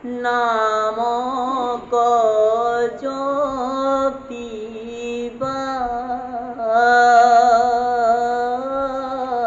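A man chanting Assamese Bhagavat verses in a slow melodic recitation, in long sung phrases with short breaks and a long held note in the second half.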